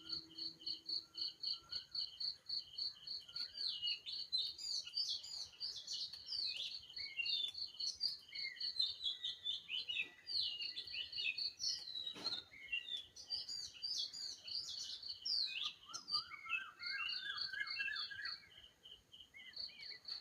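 Birds singing and chirping in quick, varied high phrases over a steady high chirp repeated about four to five times a second. A rapid trill comes in late.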